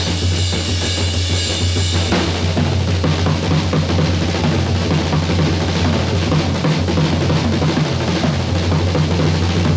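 Jazz drum kit played hard in dense rolls on snare and bass drum; the cymbal wash drops out about two seconds in, leaving the drums rolling on.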